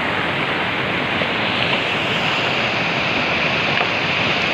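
Fast mountain stream rushing over boulders and rapids, a steady loud rush of water. The hiss grows brighter about halfway through.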